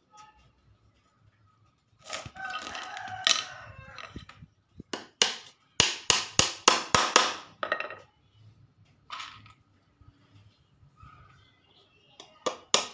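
A small hammer tapping pieces of a wooden bird-cage frame together: a quick run of about eight sharp taps a few seconds in, and a couple more near the end. A rooster crows about two seconds in.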